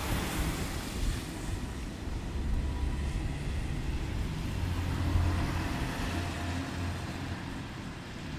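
A minivan passes close by on a wet road, its tyres hissing loudly at the start and fading away within a couple of seconds. A steady low rumble and wet-street hiss continue under it, swelling a little about halfway through.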